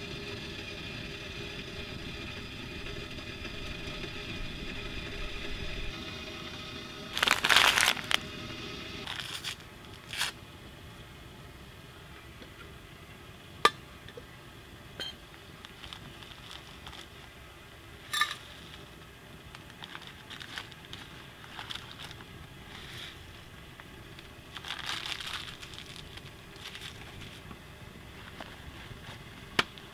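A small camp wood stove burns with a kettle on top, giving a steady hiss for the first several seconds. Then come scrapes, crinkles and a few sharp clicks of camp cookware being handled while coffee is made; the loudest is a brief scraping clatter about seven seconds in.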